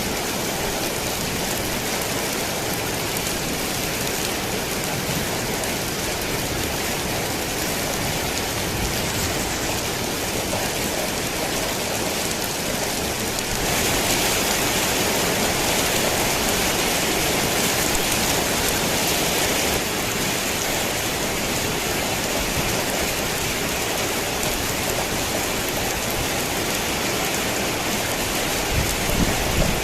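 Steady heavy rain pattering on a tin roof, growing louder for several seconds in the middle. A low rumble of thunder starts near the end.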